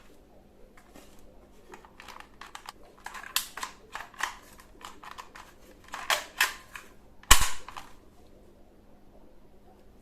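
Plastic toy guns clicking and clacking: an irregular string of sharp snaps, the loudest a crack with a thud about seven seconds in.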